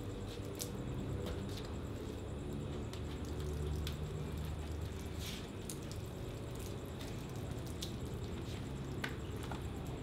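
Soapy wash mitt wiping over the wet, foamed paintwork of a BMW F30, a soft wet squishing and rubbing, with a low steady hum underneath and a few sharp little clicks.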